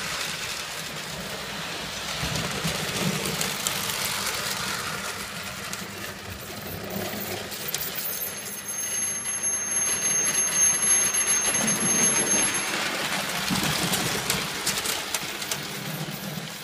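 Prewar Lionel O gauge sheet-metal toy steam train running past on three-rail track: a steady rumble and rattle of the wheels and cars, with two faint high steady tones for a few seconds in the middle, dropping away at the very end.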